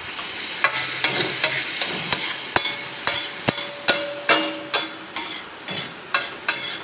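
Minced meat sizzling as it fries in a hot pan while a spatula stirs and turns it. From about two and a half seconds in, the spatula knocks and scrapes sharply against the pan about once or twice a second.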